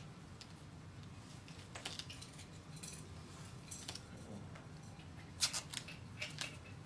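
Adhesive tape being pulled off a roll and torn in short, scratchy rips, quiet, with the loudest rips about five and a half and six and a half seconds in.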